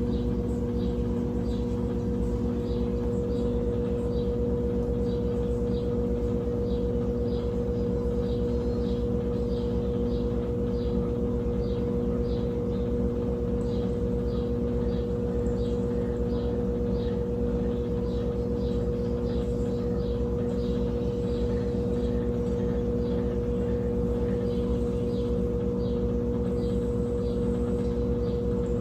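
Brastemp Tira Manchas Advanced 17 kg (BWK17) washing machine in its spin cycle, the drum spinning at a steady top speed with a steady motor whine over a low rumble.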